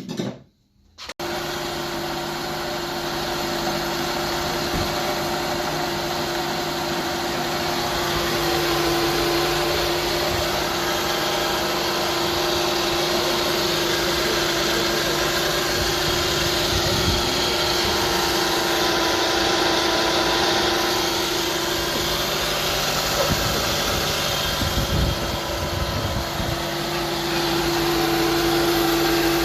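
Carburetted engine of a 1993 Nissan car running steadily at idle, with a constant hum. It sets in abruptly about a second in and holds steady.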